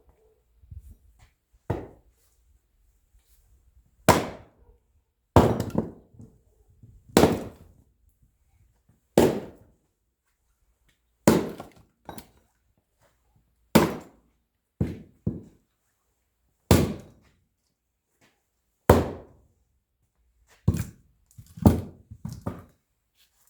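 An axe splitting firewood logs by hand, in a series of sharp wooden strikes about one to two seconds apart, coming faster near the end.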